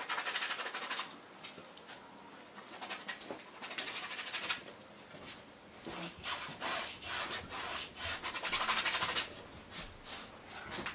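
Stiff bristle brush scrubbing oil paint onto canvas: three bursts of quick, scratchy strokes with short pauses between.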